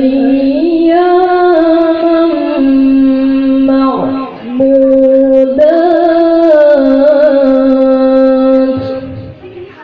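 A young male reciter chanting Quran verses melodically (tilawah) through a microphone and PA. He sings two long phrases of held, ornamented notes, with a short breath about four seconds in, and the second phrase trails off near the end.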